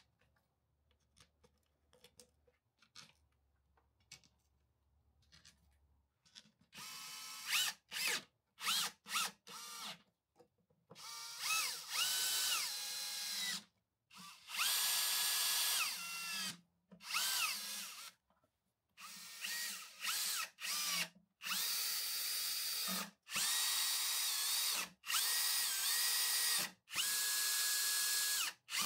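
Handheld power screwdriver driving screws into the subwoofer's metal amplifier back panel during reassembly, in short repeated bursts. Each burst is a motor whine that rises in pitch as it spins up and falls away as the trigger is let go. The bursts begin about six seconds in, after a few faint handling clicks.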